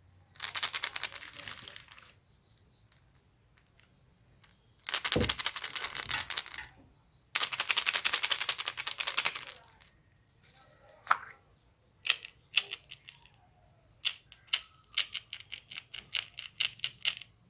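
Chocolate treats and their packaging being handled: three bursts of dense crackling, then a run of sharp separate clicks and taps of varying loudness.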